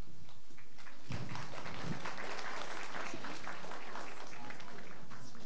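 Audience applauding, many hands clapping at once. The clapping thickens about a second in and thins out near the end.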